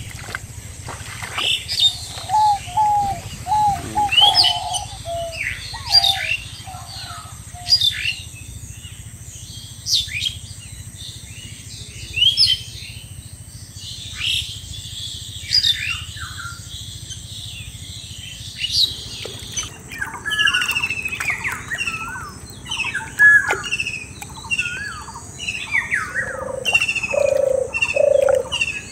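Several birds calling: sharp high chirps repeating every second or two, a short run of lower notes a few seconds in, busier chirping in the second half, and a few low cooing notes near the end.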